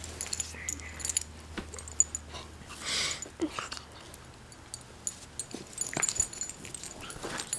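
Beagle puppy playing with a hand on a bed, sniffing and huffing, with one louder breathy huff about three seconds in and small short vocal sounds, among scattered rustles and clicks of bedding.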